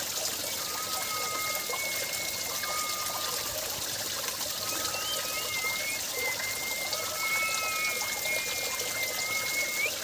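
Stream water trickling steadily among rocks, with thin, drawn-out whistling tones recurring over it every couple of seconds.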